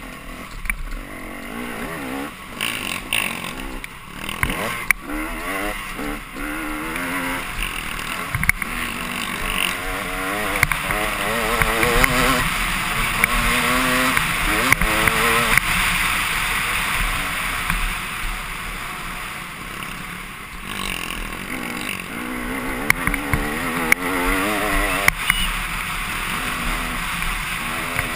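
Dirt bike engine under hard acceleration, its pitch climbing and dropping again and again as the rider works through the gears, with heavy wind rush on the on-board microphone that is loudest in the middle of the stretch. Scattered sharp clicks of debris and bumps sound over it.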